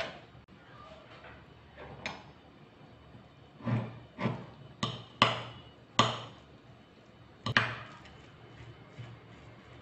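Metal spoon mixing rice in a ceramic bowl, knocking against the bowl in about six quick clinks with a short ring, mostly in the middle of the stretch.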